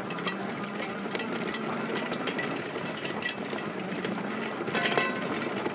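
Fat-tire electric trike rattling as it rolls over bumpy, pothole-ridden dry grass and dirt: a steady, dense clatter of small rapid clicks and knocks.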